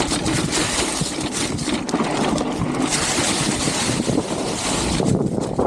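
Wind buffeting the microphone during a downhill mountain bike run, with the bike rattling and knocking over rough trail. The rushing hiss swells from about three seconds in to about five.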